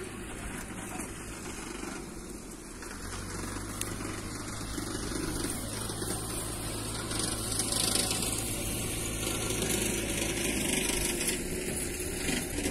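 Türk Fiat 70-56 tractor's diesel engine running steadily while it pulls a rear-mounted mower through hay, driving away across the field.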